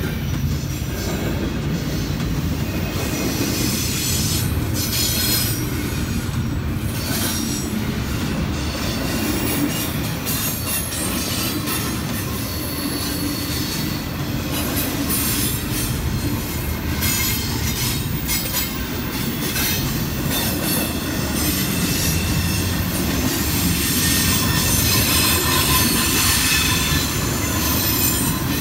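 A train rolling past at close range: a steady rumble of wheels on rails with a high-pitched squeal and hiss above it, growing a little louder near the end.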